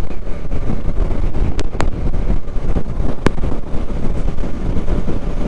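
Wind buffeting the microphone over the running single-cylinder engine of a Bajaj Dominar 250 motorcycle on the move, with a few sharp clicks around the middle.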